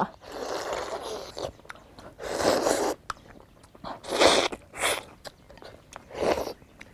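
Slurping and sucking at a bowl of fish in spicy broth and at a piece of fish held on chopsticks, in five noisy bursts, the first about a second and a half long and the rest shorter, with chewing in between.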